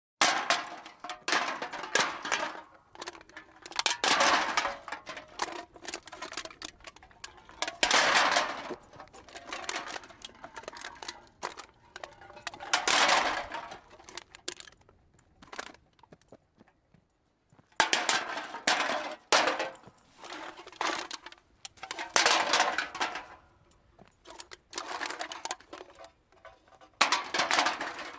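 Cans being dumped into a cart, close up: repeated bursts of metallic clattering and rattling, each a second or two long, with a pause of a few seconds past the middle.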